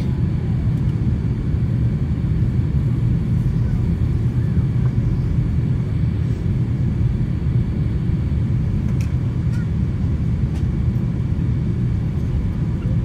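Steady low rumble of a jet airliner in cruise flight, heard from inside the passenger cabin: engine and airflow noise.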